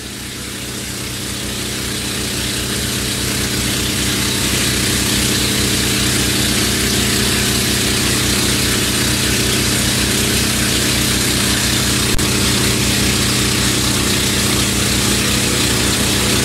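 A boat's engine running steadily while under way, with a broad hiss of wind and rushing water over it. It fades in over the first few seconds.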